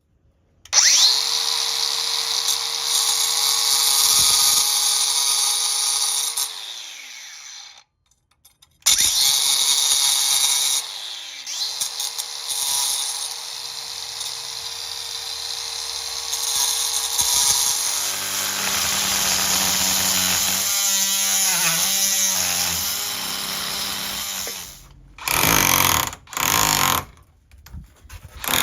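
Oscillating multi-tool cutting, run in long stretches with short stops; its steady motor pitch sags as it winds down each time it is released. Two short bursts near the end.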